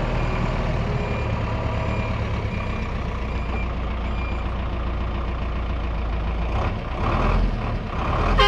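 Motorhome engine running with a steady low rumble as the vehicle moves slowly, a little louder near the end.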